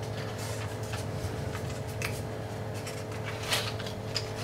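Faint light taps and scratches from small hand movements, with one slightly sharper tick about three and a half seconds in, over a steady low hum.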